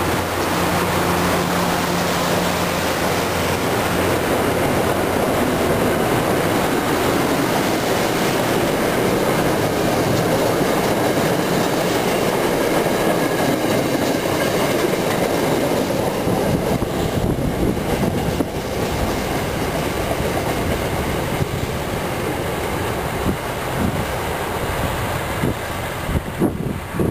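MBTA Commuter Rail passenger coaches rolling past close by, a steady rumble of wheels on rail with some clatter. The noise eases off after about sixteen seconds as the train moves on.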